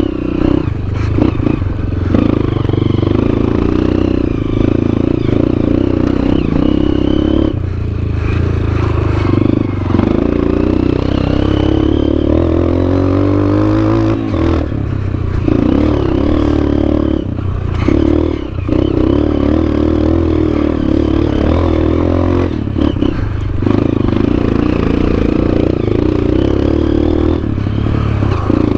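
Honda CRF230F dirt bike's air-cooled single-cylinder four-stroke engine running under load on a trail ride, its pitch rising and falling with the throttle and dropping briefly several times as the throttle is rolled off.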